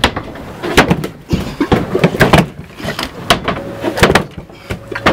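About a dozen sharp knocks and thumps, irregularly spaced, several coming in quick succession.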